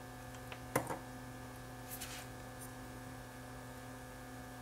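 Steady electrical mains hum, with one sharp click a little under a second in and a faint brief scrape around two seconds in as the small display module is handled.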